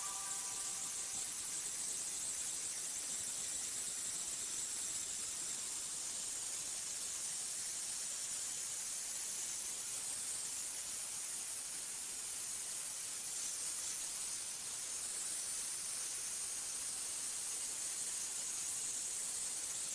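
Steady high hiss of a simulated Nano 2000 metallographic polisher, its spinning wheel running with a metal specimen held against it during a polishing phase.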